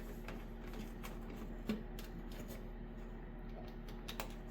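Electrical wires being handled and fed through, small rustles and light clicks with a couple of sharper ticks, over a steady low hum.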